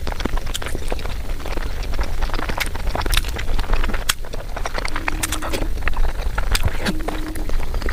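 Close-miked eating sounds of whole peeled hard-boiled eggs being dipped in sauce and chewed: dense wet smacking and squishing mouth clicks.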